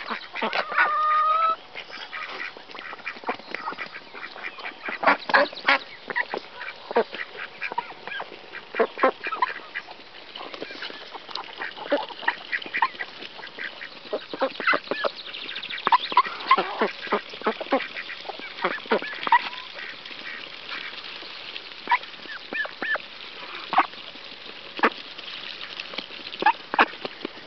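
A flock of white domestic ducks feeding on scattered grain: a fast, irregular clatter of bills pecking and dabbling at the grain on the ground, broken by occasional quacks, with one drawn-out call about a second in.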